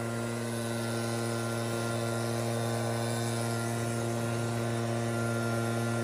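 Helicopter running steadily: a constant hum with an even hiss over it.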